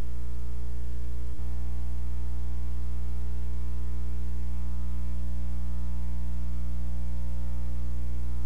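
Steady electrical mains hum: a low buzz with many evenly spaced overtones that does not change, with one small low knock about a second and a half in.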